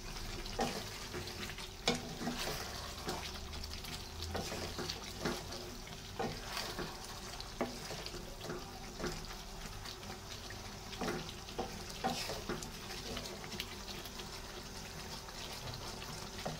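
Wooden spatula stirring thick chicken gravy in a nonstick pan: irregular knocks and scrapes against the pan over a wet, simmering sound. The stirring stops a few seconds before the end, leaving only the simmer.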